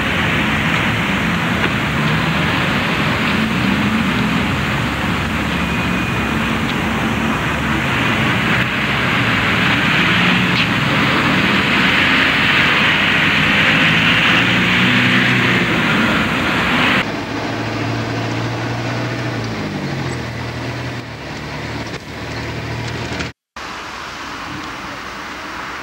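Street traffic: vehicle engines running and passing, with a steady hiss of road noise. The sound changes abruptly about 17 seconds in, and cuts out for a moment near the end.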